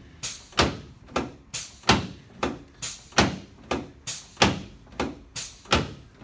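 Rapid, evenly spaced knocks on a treatment table, about three a second, each with a brief ring, made during hands-on chiropractic treatment of a patient.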